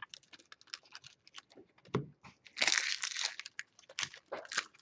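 Foil trading-card pack wrappers crinkling and tearing open while cards are handled, in scattered crackles with a denser burst of crinkling about two and a half seconds in. A light knock about two seconds in.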